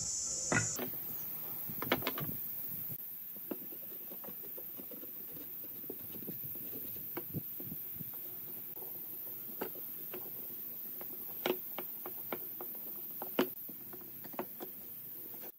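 Light wooden knocks and clicks as pine stool legs and a galvanised steel pipe are handled and fitted together on a wooden workbench, scattered every second or so over a faint steady hum.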